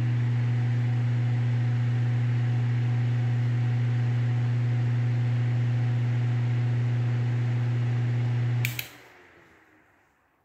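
Vintage Dominion electric desk fan running at full speed, with a loud steady motor hum under the rush of its blades. About nine seconds in, a sharp click comes and the hum stops at once. The blade noise then fades away as the fan coasts down.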